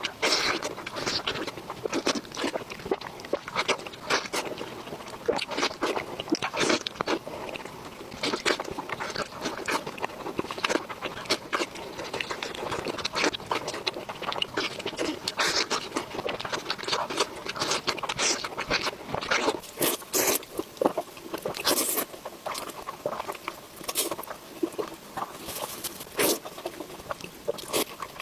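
Close-miked eating: a person chewing food, with a constant run of short wet mouth clicks and smacks.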